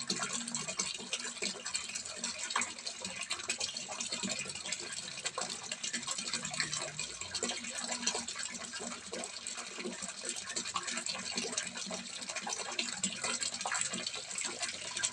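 Water pouring from a spout and splashing steadily into a small fish pond, a constant trickling and splashing.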